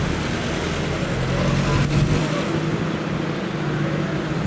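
Road traffic noise: a steady rumble of passing vehicles, with a faint click about two seconds in.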